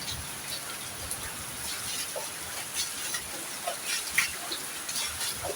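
Heavy rain falling: a steady hiss with many scattered drop ticks.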